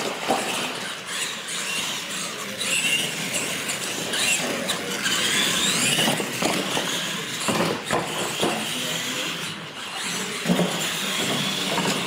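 Radio-controlled monster trucks at full throttle: motors whining up and down in pitch, tyres scrubbing on concrete, with several sharp thumps as the trucks jump ramps and land.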